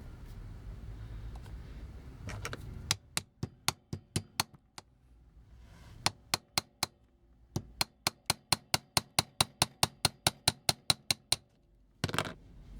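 Quick, light metal-on-metal hammer taps driving a wheel rivet out of a vintage die-cast toy car: three runs of sharp taps about four to five a second, the longest run in the second half.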